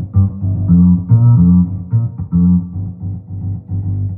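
Intro music led by plucked guitar over a bass line, notes changing every fraction of a second.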